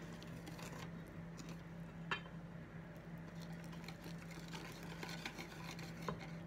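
Wire whisk stirring thin chocolate cake batter in a stainless steel bowl, a soft wet mixing sound, with a light tap of the whisk on the bowl about two seconds in and another near the end. A steady low hum runs underneath.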